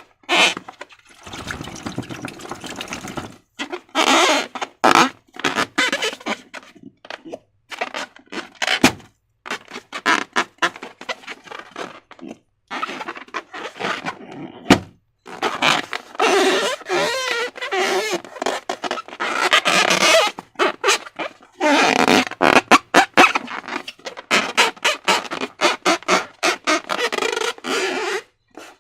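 Slime being worked by hand, with irregular wet squelches and sticky crackling clicks in uneven bursts.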